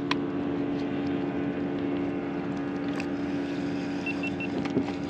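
A motorboat's engine running steadily, an even low drone with no change in pitch.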